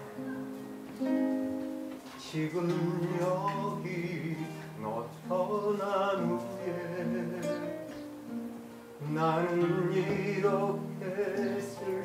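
Live acoustic guitar accompanying a man singing into a microphone, the voice coming in sung phrases with short gaps between them.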